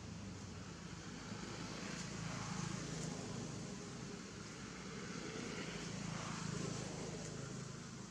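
Steady low rumble of distant engine traffic, swelling twice as vehicles pass.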